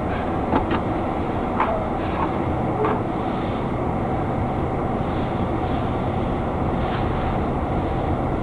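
Four-wheel-drive truck driving through snow: a steady rumble of engine and tyres, with a few short clicks in the first three seconds.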